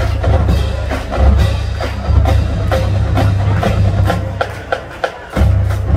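Marching band drumline playing a cadence: a steady run of sharp, clicky strokes about four a second over low drum hits, with the low drums briefly dropping out about five seconds in.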